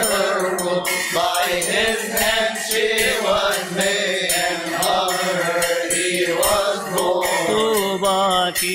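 Coptic Orthodox hymn to the Virgin Mary, chanted by voices in a long melismatic passage with no clear words, with frequent sharp strikes of small percussion.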